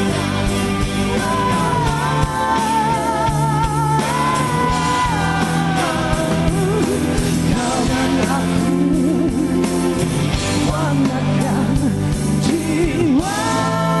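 Rock band playing a song, with a lead vocal singing long, wavering notes over a steady beat. Near the end the singer moves onto a new, higher held note.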